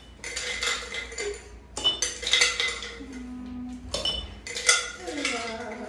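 Ice cubes clinking and clattering as a metal spoon scoops them out of a glass jar and drops them into small glasses, in several separate rounds.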